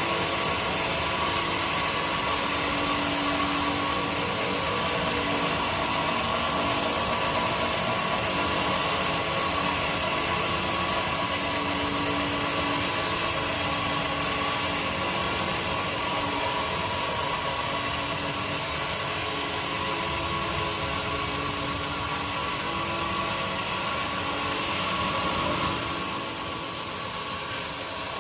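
A power tool running steadily, a loud motor whine with a high hiss over it. It drops briefly and changes abruptly near the end.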